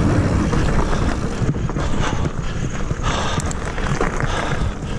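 Wind buffeting the camera's microphone over the rumble and rattle of a mountain bike riding a rough dirt trail, with a few sharp knocks from the bike over bumps in the middle.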